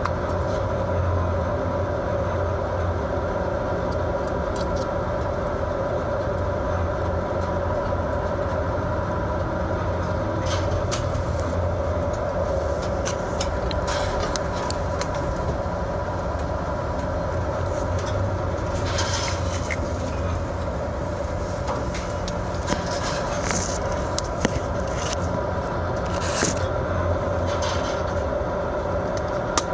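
Fishing vessel's engine and machinery droning steadily under a constant rushing noise, with scattered sharp clicks and rattles, more of them in the second half.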